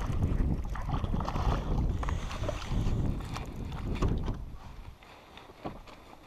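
A hooked largemouth bass splashing at the surface as it is reeled to the boat, over a low rumble of wind and handling on the microphone. The noise settles after about four and a half seconds.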